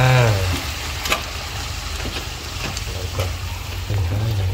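Shrimp frying in a nonstick pan, sizzling steadily as a spatula stirs them, with a few short clicks and scrapes of the spatula on the pan.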